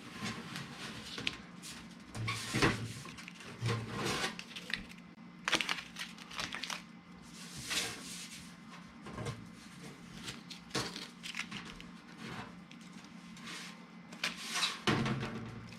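Irregular handling noises: scraping, rustling and a few sharp knocks, over a faint steady low hum.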